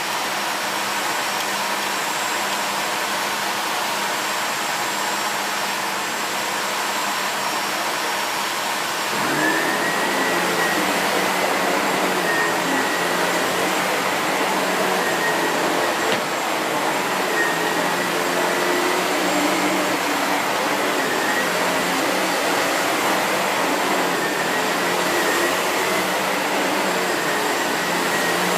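SEBO Felix bagged upright vacuum cleaner running steadily. About nine seconds in it gets louder and a steady high whine comes in.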